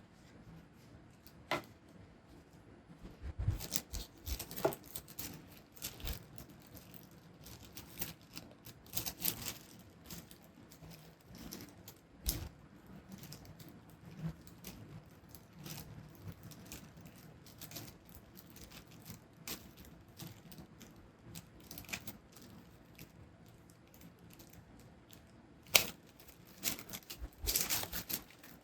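Unboxing of a wallet's packaging by hand: scattered rustling of paper and cardboard with light taps and clicks. The sharpest click comes near the end, followed by a short burst of rustling.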